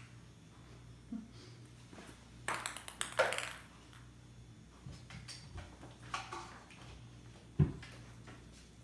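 Plastic balls clicking and rattling around the tiers of a plastic cat ball-track toy as a kitten bats at them. The clicks come in quick clusters, and there is one dull knock near the end.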